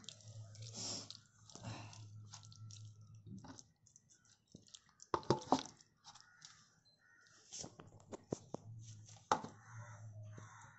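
Hands kneading and rubbing thick masala paste into a whole raw chicken in a steel plate: irregular wet squelching and smacking, with sharp clicks where the meat or fingers strike the steel. The clicks are loudest and bunched about five seconds in, with another single sharp one near the end.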